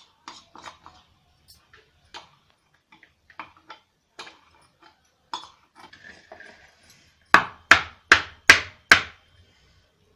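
Steel spoon and steel cookware clinking as sticky jaggery-coated peanuts are scraped from the pan onto a steel plate: scattered light scraping clicks, then five sharp metal knocks in quick succession near the end.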